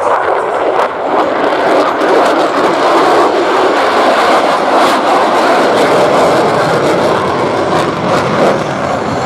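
Loud, steady jet noise from a U.S. Navy F-35C Lightning II's single Pratt & Whitney F135 engine as the fighter flies a low knife-edge pass.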